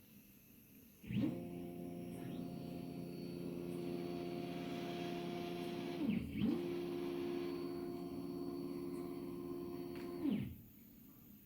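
Stepper motors driving a DIY aluminium-profile gantry: a steady whine as the gantry travels one way, a dip in pitch about six seconds in as it slows, reverses and speeds up again, then a falling pitch as it stops near the end.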